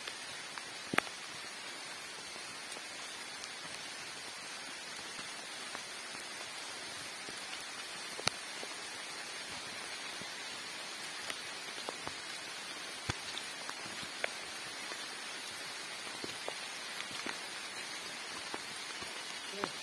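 Rain falling steadily: an even hiss with scattered sharp ticks of drops striking close by, a few of them louder.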